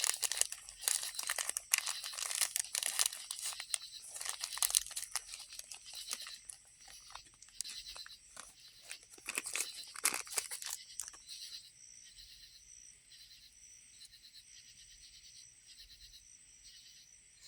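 Packaging crinkling and rustling, with scattered crunches, as small tinder packets are handled and sorted for about eleven seconds, then it stops, leaving only a faint pulsing hiss.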